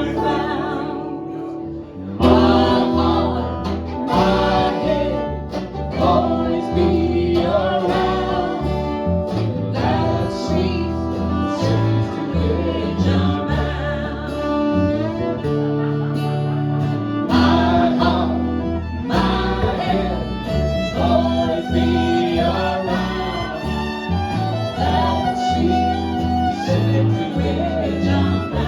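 Instrumental folk music: fiddle playing melody lines over strummed acoustic guitar and a steady bass line.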